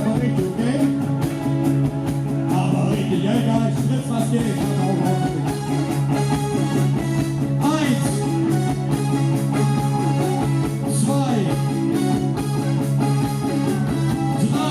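Live rock band playing at full volume, with sustained chords over a steady driving drum beat.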